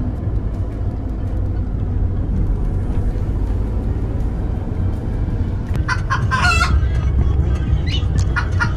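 Steady low rumble of a car driving, heard from inside the cabin. About six seconds in, a rooster crows once, and shorter clucking calls follow near the end.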